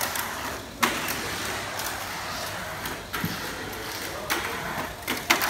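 Tamiya Mini 4WD Cyclone Magnum running around a plastic track: a steady whirring hiss of its small electric motor and gears, with about five sharp clacks roughly a second apart.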